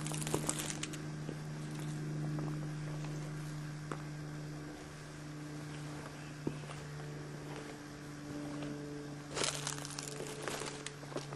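Footsteps crunching on a gravel driveway, loudest right at the start and again about nine and a half seconds in, over a steady low hum.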